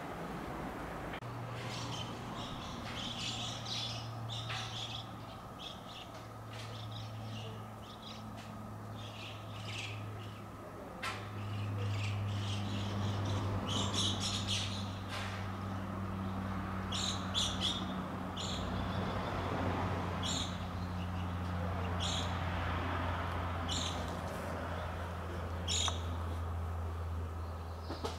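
Small birds calling in the trees: clusters of chirps at first, then single short calls about every two seconds. A low steady hum runs underneath.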